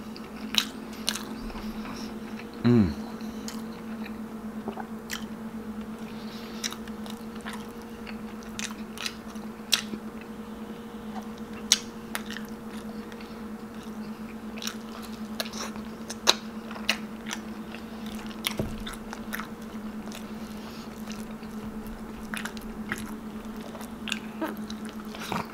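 Close-up sounds of a person eating braised pork hock stew and rice by hand: wet chewing, lip smacks and scattered clicks of mouth and fingers, over a steady low hum. A short falling tone about three seconds in.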